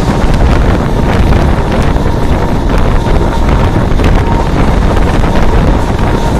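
Wind buffeting the microphone through the open window of a moving suburban electric train, a loud steady rush over the train's low running rumble.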